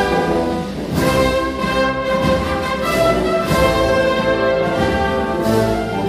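A Spanish Holy Week processional march played by a wind band: brass holding slow chords over regular drum strokes.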